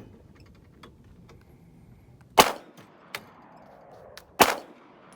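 Two semi-automatic pistol shots about two seconds apart, each sharp crack followed by a fading tail.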